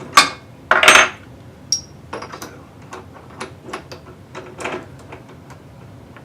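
Hard objects, such as tools and wood pieces, being handled on a workbench: a sharp knock, then a louder clatter about a second in, followed by scattered light clicks and taps.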